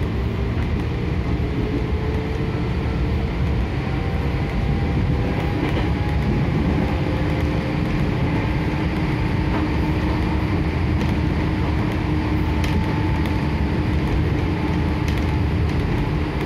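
Inside a JR 205-0 series electric train running at speed: a steady rumble of wheels on rails with a faint, even whine from the traction motors, and a few sharp clicks near the end.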